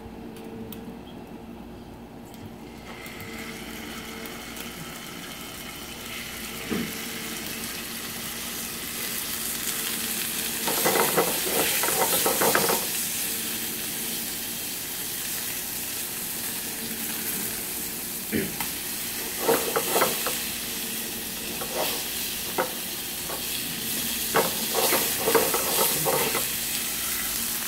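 Pork pieces searing in hot oil in a frying pan over a high gas flame, browning the outside. A steady frying hiss rises as the oil heats, then loud bursts of crackling and spitting come about ten seconds in as the meat goes into the oil, with more bursts later as the pieces are turned with chopsticks.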